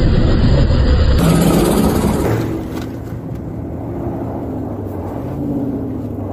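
KAMAZ diesel truck driving past on ice, its engine and tyres loud for about the first two and a half seconds, then fading to a quieter, steady running sound.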